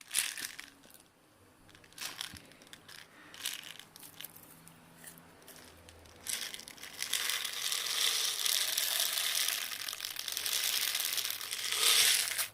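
Crinkling and rustling from hands working with small objects: scattered crinkles and clicks at first, then a steady, dense rustle from about six seconds in that stops just before the end.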